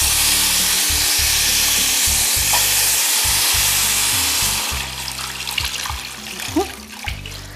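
Water poured from a glass jug into a hot stainless-steel pot of oil-toasted rice, hissing and sizzling loudly as it hits the hot pan. The sizzle dies down after about five seconds to quieter splashing as the pouring goes on.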